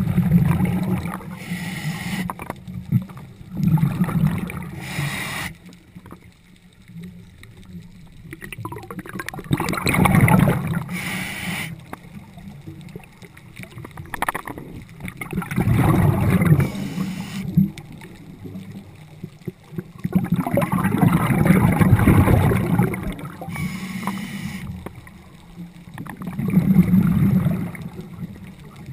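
Scuba regulator breathing heard underwater: six long, bubbling exhalations about every five to six seconds, each followed by a short hiss of inhalation.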